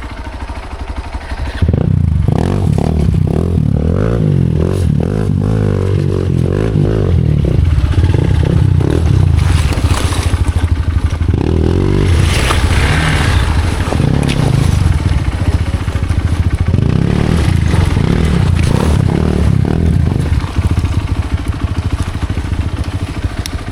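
Hero Xpulse motorcycle's single-cylinder engine riding off-road, its pitch rising and falling as the throttle is worked, with scattered knocks and rattles. The engine picks up loudly about two seconds in.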